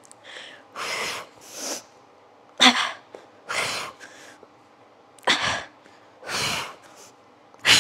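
A woman's forceful breathing while doing crunches: short, sharp breaths in and out, about one every second, some with an abrupt huff.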